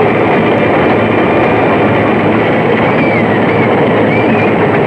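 Steady, loud mechanical running noise of a fishing boat's engine mixed with rushing sea water, with a few faint high wavering sounds about three seconds in.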